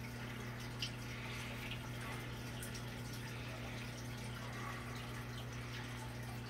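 Aquarium fountains trickling and dripping, splashing louder because the fish tanks are low on water, over a steady low hum.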